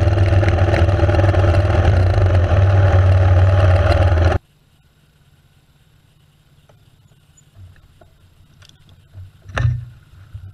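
Enduro motorcycle engine running steadily, loud and even, then cut off abruptly about four seconds in. After that it is quiet, with a few faint clicks and one short thump near the end.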